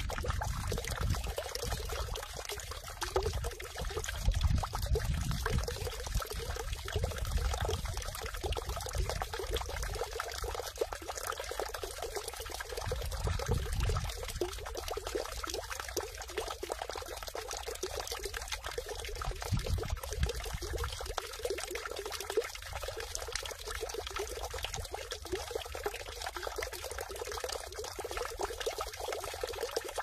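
Water falling steadily into a stone temple water basin (sugwak) with a continuous pouring, splashing sound. A low rumble swells and fades now and then, mostly in the first half.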